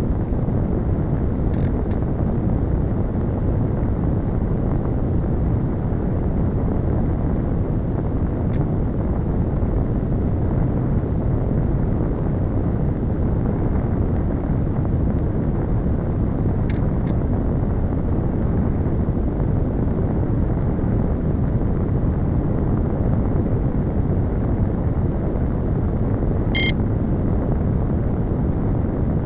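Steady rush of wind over the onboard camera microphone of a Slow Stick RC plane gliding with its motor throttled back, with no motor whine. A few faint short ticks come through now and then.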